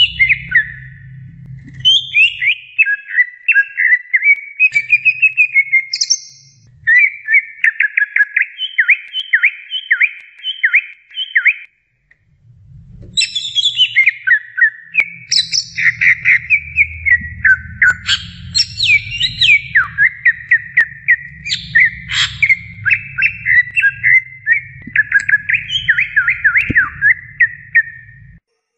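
Cucak ijo (green leafbird) singing a long, fast song of rapidly repeated sharp notes and quick whistled sweeps, broken by a brief pause about twelve seconds in. A faint low hum runs under parts of it.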